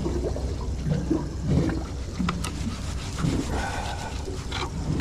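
Water lapping around a small boat over a steady low rumble, with soft scraping and a few light clicks from a knife cutting squid on a plastic cutting board.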